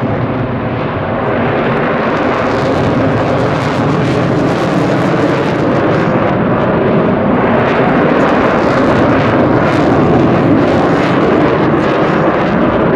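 Jet noise from a Swiss Air Force F/A-18 Hornet's twin General Electric F404 engines at high power during a display pass: loud and steady, growing slightly louder over most of the stretch.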